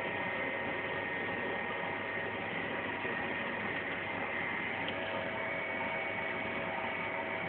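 Steady machine hum: an even electrical drone with a few constant tones over a light hiss, unchanging throughout.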